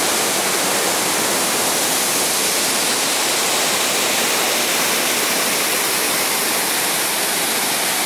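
A waterfall rushing in a steady, even wash of falling water.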